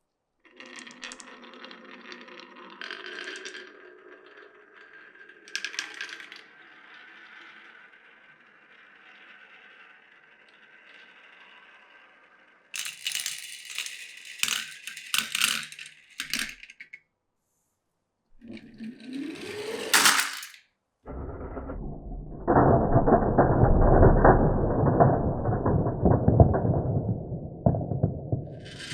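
Glass marbles running through a wooden and plastic marble run: a long stretch of quiet rolling, a burst of sharp clacks about halfway through, then a louder, low rumbling roll for the last several seconds.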